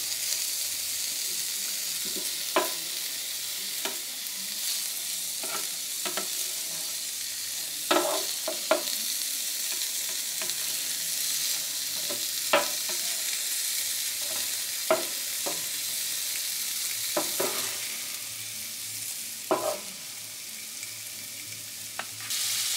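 Shrimp, peppers and onions sizzling steadily on a Blackstone E Series electric indoor griddle, with a spatula scraping and tapping on the griddle plate every few seconds.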